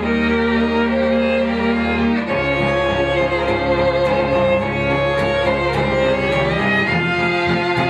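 Small cello ensemble playing slow, held chords, moving to a new chord about two seconds in and again near the end.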